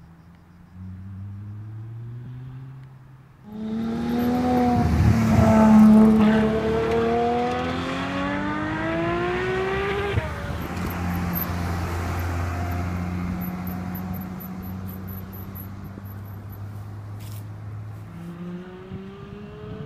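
Ferrari F12tdf's naturally aspirated V12 accelerating hard, its pitch climbing through successive upshifts, loudest a few seconds in. After about ten seconds it drops to a lower, steadier drone that slowly fades, and near the end another rising rev begins.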